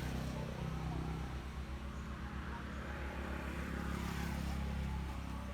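Motor vehicle engine running with a low, steady hum, while road noise swells and fades as a vehicle passes.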